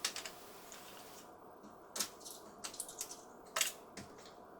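Toy play money and coins being put into a toy cash register's drawer: a few light, scattered clicks and rustles.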